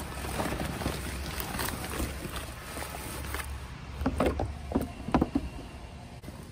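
Gloved hands rummaging through a cardboard box of papers and envelopes: paper and cardboard rustling and crinkling, with a few sharp, louder crackles about four to five seconds in, over a steady low rumble.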